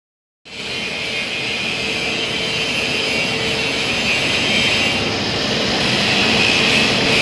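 Hydraulic pump motor of a rubber vulcanizing press running, a steady hum with a high whine that starts about half a second in.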